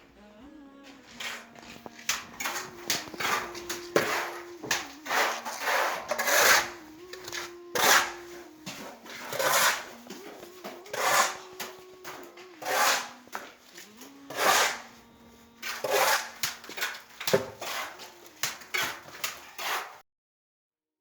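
Background music: a held, hummed melody that steps between a few notes, over repeated loud swishing strokes, stopping abruptly near the end.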